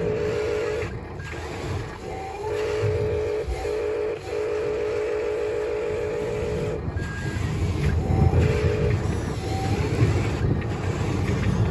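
Remote-control toy wheel loader working in dirt: its small electric motors and gears run with a rumbling whine. A pulsing electronic tone comes and goes several times, with a few short higher beeps.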